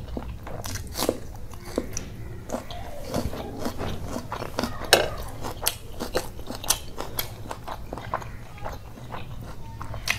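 Biting and chewing with irregular sharp crunches of raw onion, eaten between mouthfuls of rice and curry, the loudest crunch about five seconds in.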